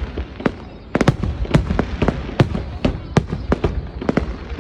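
Aerial fireworks shells bursting high overhead: a rapid, irregular series of sharp bangs, sparse at first and coming thick and fast from about a second in.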